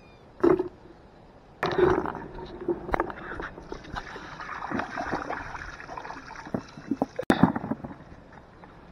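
Water sloshing and splashing in a plastic bucket as potatoes are washed by hand. A short splash comes about half a second in, then uneven swishing with frequent sharp knocks that dies down near the end.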